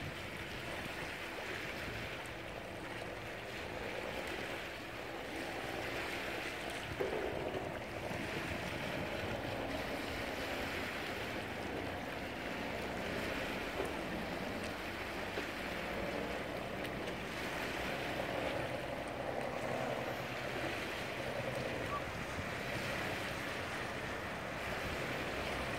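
Choppy river water lapping and wind buffeting the microphone, with a boat's engine running steadily underneath.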